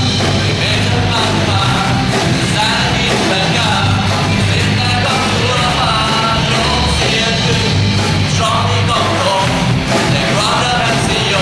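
Live rock-style worship band playing loudly, with a drum kit and amplified electric guitar and bass, and voices singing over it.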